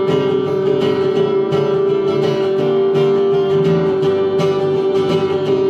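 Acoustic guitar strummed in a steady rhythm, accompanying a live country-style song.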